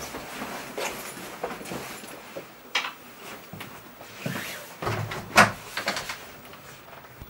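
Clothing rustling and footsteps, then a wooden front door's latch clicking and the door being pulled open, the sharp latch click a little over five seconds in being the loudest sound.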